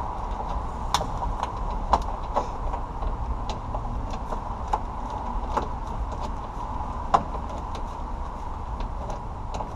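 Ratchet wrench clicking in short, irregular runs as a bolt holding the window glass to the regulator is worked loose inside a car door, over a steady low hum.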